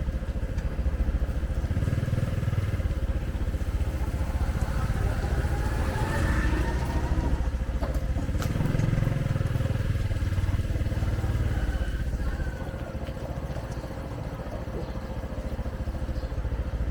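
Motorcycles running in street traffic, with a continuous low engine rumble that swells and fades.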